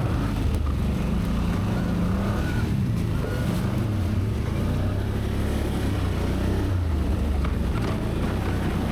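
ATV engine running steadily while riding a trail, its pitch drifting slightly up and down with the throttle.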